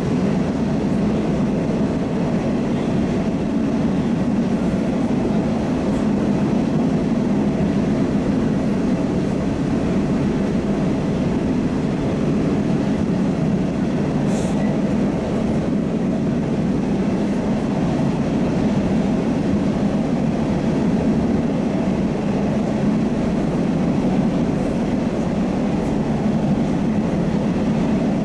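Moscow Metro 81-760 'Oka' train running at speed between stations, heard from inside the car: a steady, even running noise of wheels on rail.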